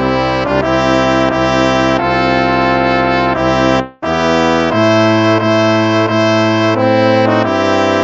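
Background music of slow, held brass chords that change about once a second, with a brief break about halfway through.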